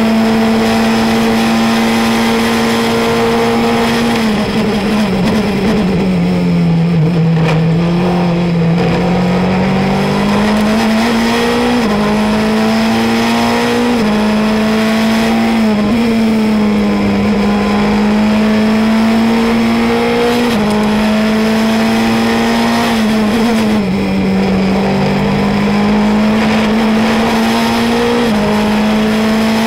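Onboard engine sound of a Formula Renault 2.0 single-seater, a 2.0-litre four-cylinder, running hard at a steady high pitch. About four seconds in, the pitch falls for a few seconds as the car slows. It then climbs back up in steps, with a small drop every couple of seconds as the gears change.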